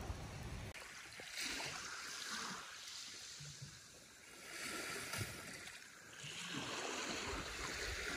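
Surf washing on the beach, a soft hiss that swells and fades about three times.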